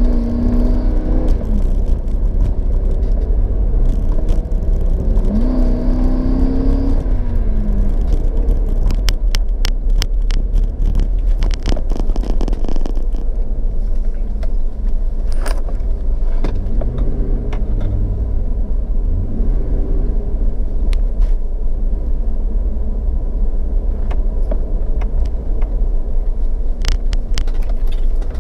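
Road and engine rumble inside a moving SUV's cabin, with loose items in the vehicle rattling and clicking on and off. A couple of brief wavering tones sound near the start and about six seconds in.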